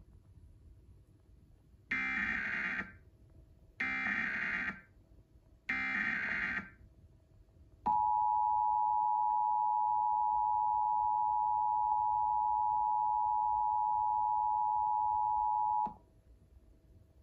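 Emergency Alert System test signal: three one-second bursts of SAME header data screech about two seconds apart, then the two-tone EAS attention signal, held steady for about eight seconds before cutting off.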